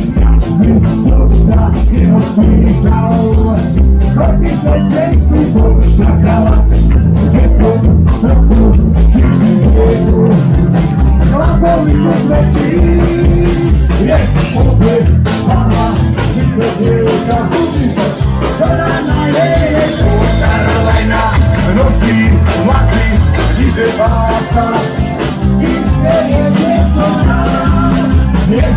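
Punk rock band playing a song live, loud, with a steady driving drum beat under the guitars and vocals.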